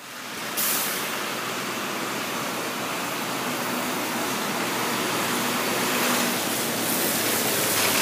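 Steady city street noise: a continuous hiss of traffic, fading in over the first half second, with a faint engine hum partway through.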